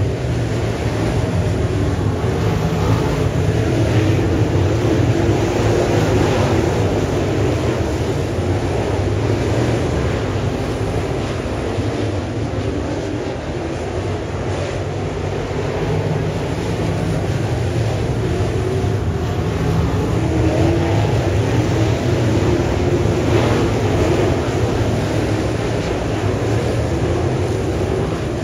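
Crate late model race cars' 604 crate V8 engines running hard on a dirt track: a steady, dense drone that swells and eases a little as the cars go around.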